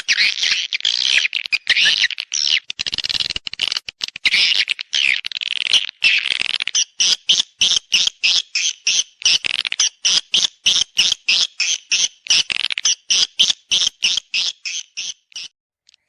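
Swiftlet calls played as a lure for mating and nesting: a dense, high chattering twitter that breaks into rapid, evenly spaced chirps about four a second from about halfway, with a brief pause near the end.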